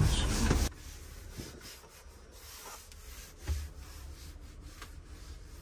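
Background music stops abruptly less than a second in. What follows is the faint rubbing of a cloth wiping a kitchen countertop, in short strokes, with a soft bump about three and a half seconds in.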